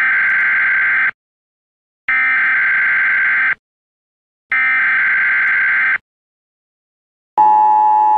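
A steady electronic beep sounds three times, each about a second and a half long with about a second of silence between, then a lower-pitched tone starts near the end.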